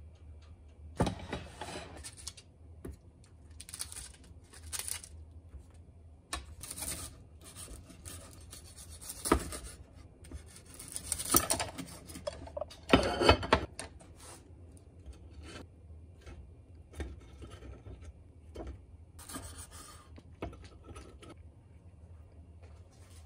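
Kitchen handling sounds: dishes and chopsticks knocking on a counter and a knife cutting on a wooden cutting board. They come as scattered clicks and scrapes, loudest a little past the middle, over a steady low hum.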